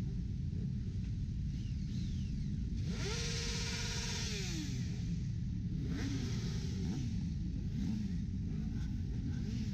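Motorcycle engines running in a steady low rumble. About three seconds in, one engine revs up, holds and falls back off about a second and a half later, with a few shorter revs after.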